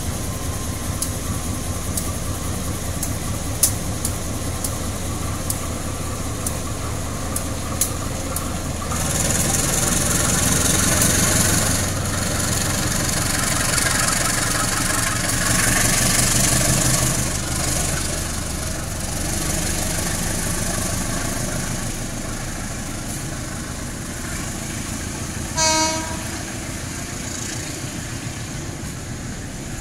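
Diesel-electric locomotive and its passenger coaches passing: a steady low engine rumble at first, then the coaches rolling by with wheel clicks and a hissing rush. A brief horn note sounds near the end.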